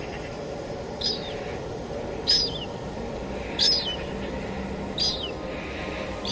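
Steady rain falling, with a bird repeating a short high call a little over a second apart, each call dropping in pitch at its end.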